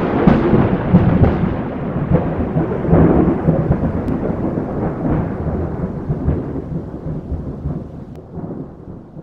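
Rolling thunder rumbling, swelling a few times in the first seconds and then slowly dying away.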